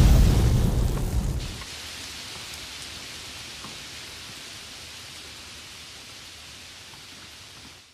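Explosion-and-fire sound effect: a loud low boom that dies away over about a second and a half, then a steady hiss of burning flames with faint crackles, which cuts off near the end.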